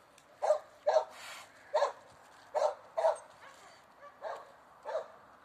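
A run of about eight short, sharp bark-like animal calls, one every half second or so, tailing off near the end.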